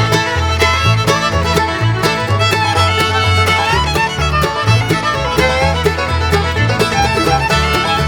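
Upbeat bluegrass-style background music with fiddle over a steady, bouncing bass line.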